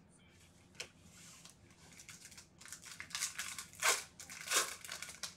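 Foil trading-card pack wrapper being torn open and crinkled by hand: a run of crackling rips, the two loudest coming about four seconds in.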